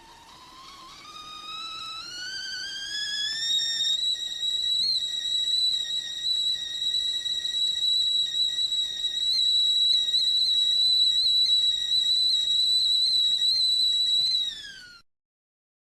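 Stovetop whistling kettle at the boil. The whistle starts low and rises in pitch over about four seconds, then holds a steady shrill tone for about ten seconds. Near the end it drops in pitch and cuts off suddenly.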